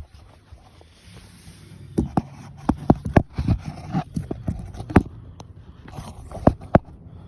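A run of about ten sharp, irregular knocks and thumps over a low steady rumble, starting about two seconds in.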